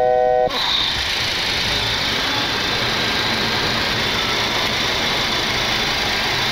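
Steady rush of airflow and jet-engine noise inside a Boeing 737 cockpit on final approach with the landing gear down, with a low rumble growing slightly from about a second and a half in. A steady electronic tone stops about half a second in.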